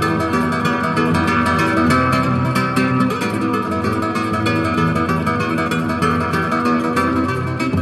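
Background music with a plucked acoustic guitar playing steadily.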